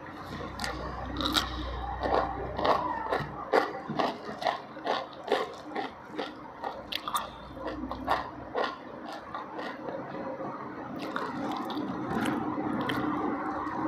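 A person chewing a mouthful of crunchy food close to the microphone. A quick run of crisp crunches fills most of the first nine seconds, then it eases into softer, steadier chewing.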